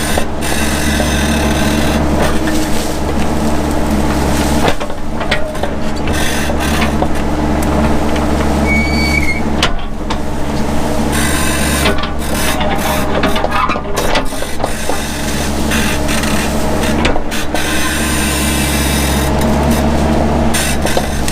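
Mini excavator engine running steadily under load, with irregular scraping and crackling as brush is cleared.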